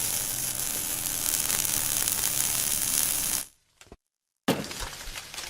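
DoAll by Romi 20" x 120" engine lathe running with a steady whir and hum. The sound cuts out for about a second about three and a half seconds in, then resumes with irregular ticking and rattling.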